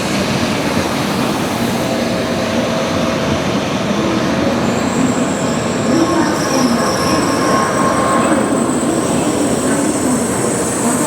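Train moving through the station: a steady running noise of wheels and motors, with a thin high squeal coming in about five seconds in.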